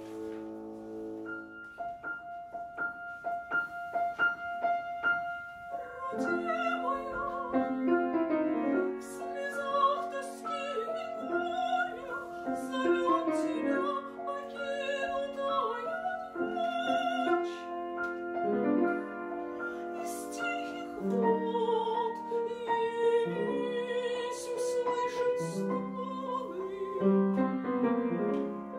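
Piano plays a few repeated notes, then from about six seconds in a woman sings in a classical, operatic style with strong vibrato over the piano accompaniment.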